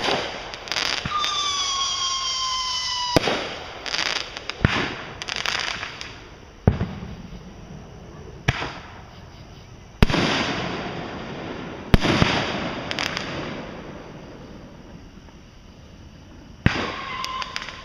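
Fireworks going off: a whistle falling in pitch ends in a bang about three seconds in, followed by several more sharp bangs a second or two apart with crackling after some of them, and another falling whistle near the end.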